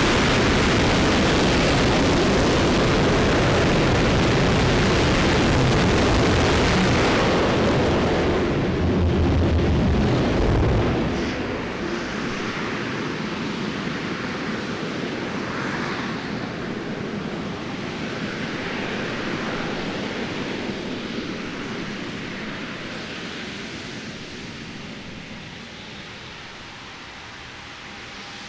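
RS-25 liquid-fuelled rocket engine on a hot-fire test: a loud, steady roar that cuts off about eleven seconds in at engine shutdown, leaving a rumble that echoes on and slowly fades.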